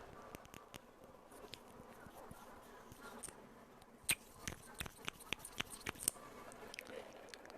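Close-miked ASMR clicking sounds: sparse soft clicks, then a run of sharper, louder clicks in the middle, the loudest about four seconds in.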